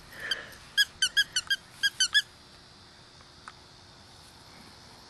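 Squeaky dog toy squeezed about eight times in quick succession, in two short runs of high squeaks.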